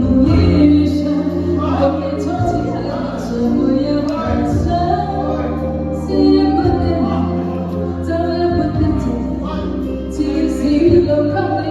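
A street band playing a song with a singer's voice carrying the melody over held bass notes.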